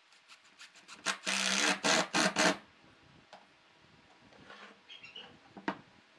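Makita cordless driver sinking a screw into pine boards, running loud in two quick spells about a second in, for about a second and a half in all. Light handling clicks come before it, and a single knock of the wood near the end.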